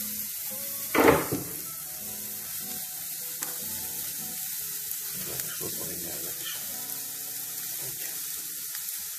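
Raw lamb steaks sizzling on a hot grill grate over charcoal, freshly laid on and starting to sear. A brief louder burst about a second in.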